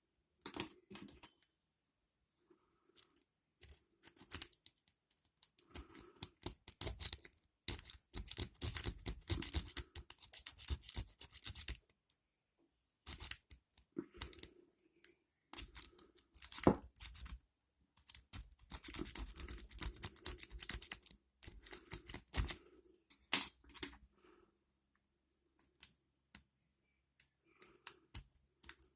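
Lock pick and tension wrench working the pins inside an ASSA Ruko 2 padlock: scattered small metal clicks and scratches, with two longer runs of rapid clicking, about six to twelve seconds in and again around eighteen to twenty-two seconds in.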